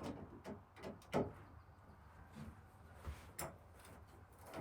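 A few light knocks and clicks at uneven intervals, the loudest a little over a second in, like small hardware and a wooden cupboard being handled.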